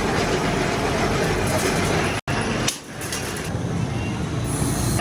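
Coil spring making machine running: a steady, loud mechanical din that cuts out abruptly for an instant about two seconds in.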